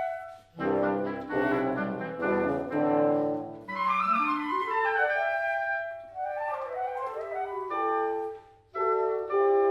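Wind quintet of flute, oboe, clarinet, horn and bassoon playing classical music in quick rising runs of notes, with two short breaks and held chords near the end.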